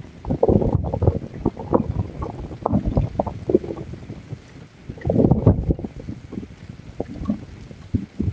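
Heavy rain and gusting wind buffeting a Nest outdoor security camera's microphone: an uneven rumbling roar with scattered ticks of drops, surging about half a second in and again around five seconds.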